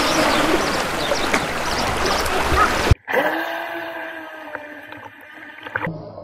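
Brushless motor of a UDIRC UDI005 RC speed boat whining at a steady pitch over a rush of water and wind noise. The sound cuts off abruptly about three seconds in, then the whine resumes, quieter and fading, until another abrupt cut near the end.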